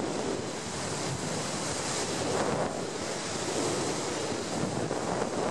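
Rushing wind noise from the airflow of a hang glider in flight, buffeting the wing-mounted camera's microphone. It is a steady roar of air that surges a little and eases.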